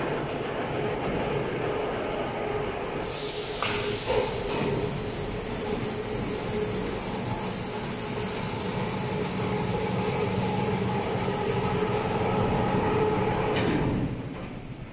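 Steady mechanical din of a factory workshop: a continuous hum with a steady mid-pitched tone. A high hiss joins about three seconds in and stops sharply about twelve seconds in, and there are a couple of short knocks around four seconds in.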